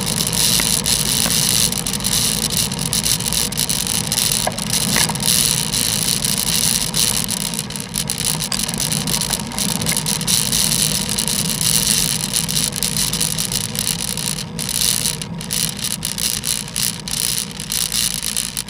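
Steady road noise on a bicycle ride in the rain: a continuous hiss of wet road and wind on the camera microphone over a low rumble of motor traffic, easing slightly near the end.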